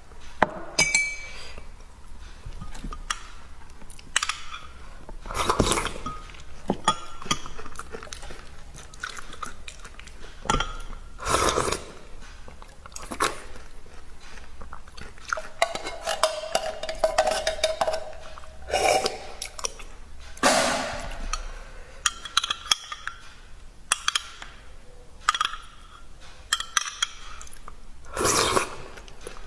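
Close-miked eating sounds from a person eating noodle soup: chewing, with utensils clinking against the bowl again and again.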